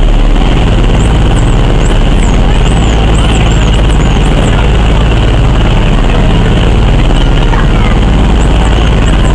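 Boat engine running with a steady low drone under a loud rush of wind and water. A few short, high chirps come through in the first half and again near the end.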